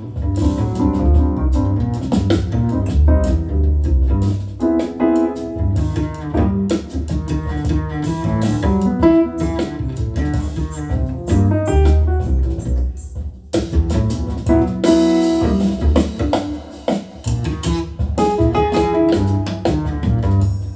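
Piano trio music (piano, bass and drums) played back over hi-fi floor-standing loudspeakers driven by a Soulnote A-2 integrated amplifier, with a steady run of piano notes over a strong bass line and light cymbal strokes, and a short drop in level a little past halfway.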